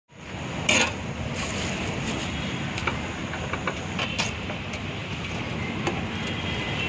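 A steady rushing noise with a few sharp metallic clicks, the loudest about a second in. The clicks are a steel scoop knocking against a large aluminium biryani pot as parboiled basmati rice is spread over the gravy.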